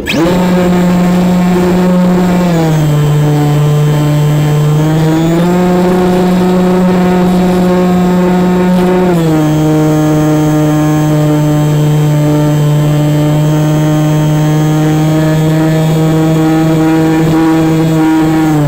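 Electric motor and propeller of a Zazzy RC plane under power in flight: a loud, steady whine that spins up at the start. Its pitch steps down, back up and down again with throttle changes, and it cuts off sharply near the end as the throttle is closed.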